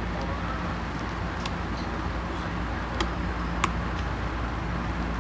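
A few light, sharp clicks of small tools and parts being handled during smartphone reassembly, over a steady background hum.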